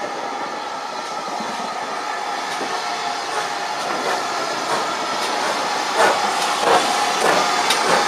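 Steam tank locomotive and its coaches rolling slowly past close by, with a steady hiss of steam that grows louder. From about six seconds in, wheels click over the rail joints, a few clicks a second.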